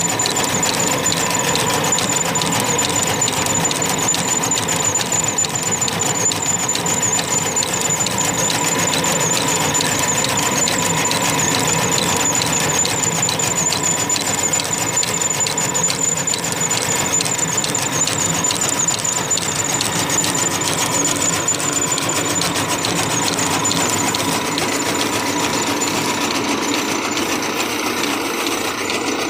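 Belt-driven chaff cutter running steadily, its cutter flywheel turning with a fast, even clatter and a steady high whine.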